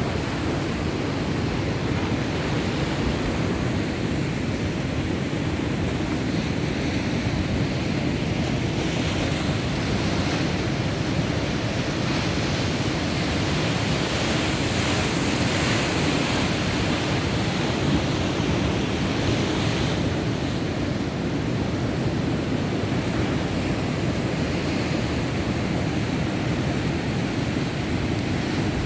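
Heavy surf from a rough sea: waves breaking in a continuous roar of churning water, with wind blowing on the microphone.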